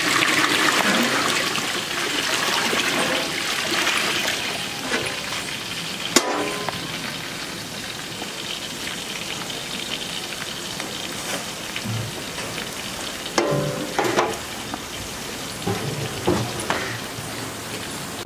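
Food frying in hot oil, a steady sizzle that is loudest at first and eases off over the first few seconds. There is a sharp click about six seconds in, and a few short clanks near the end.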